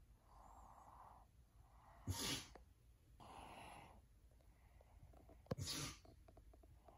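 Quiet, slow breathing broken by two short, sharp sneeze-like snorts about three and a half seconds apart.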